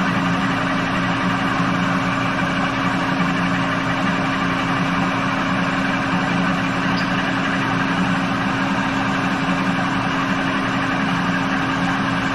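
Manual metal lathe running with a bell housing spinning in its fixture, together with its rotary phase converter: a steady, even mechanical hum with a constant drone. The tool is being brought in and is not yet cutting.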